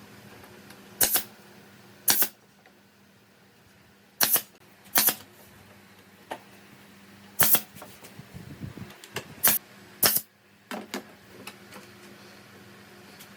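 A series of sharp, short clacks at irregular intervals, about a dozen in all with several much louder than the rest, over a faint steady hum.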